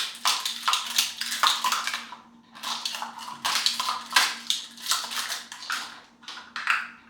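Hard objects clattering and rattling against each other in two quick, irregular runs, the first about two seconds long and the second about four seconds after a short pause. A faint steady hum runs underneath.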